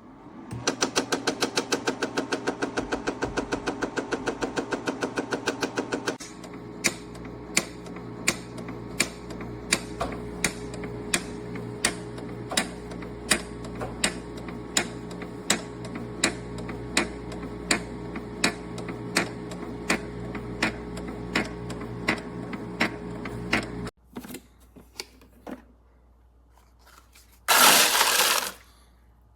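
Countertop nugget ice maker running. A steady machine hum comes first with rapid clicking for about six seconds, then with evenly spaced clicks about one and a half times a second. The hum and clicks stop abruptly about 24 seconds in, and a short loud rushing noise follows near the end.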